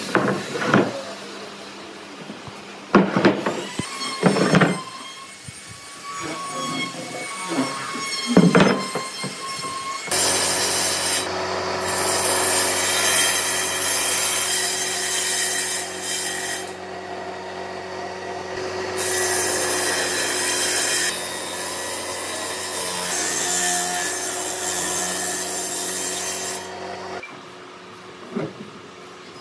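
A few sharp knocks of wood being handled, then from about ten seconds in a power tool runs steadily on wood for about seventeen seconds and stops.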